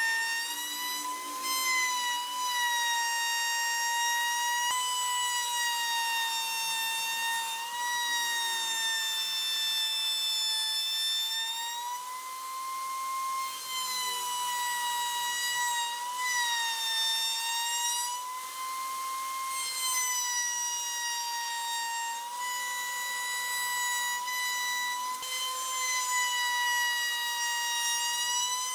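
Table-mounted router running at full speed, a loud high whine that wavers slightly in pitch as the bit cuts into the edge of the wooden panel fed against it.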